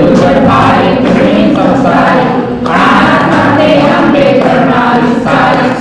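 A group of worshippers singing a Hindu devotional aarti together in unison, the singing running on with a brief dip near the end.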